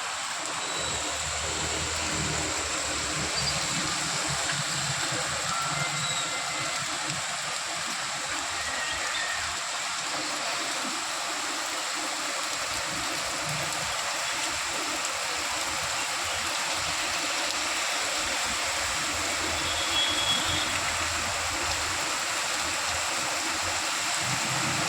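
Heavy monsoon rain pouring down steadily, an even hiss of a downpour.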